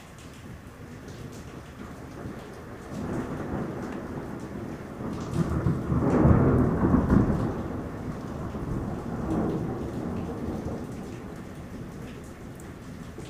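A long rolling rumble of thunder over steady rain: it builds from about three seconds in, is loudest around the middle, swells once more and dies away.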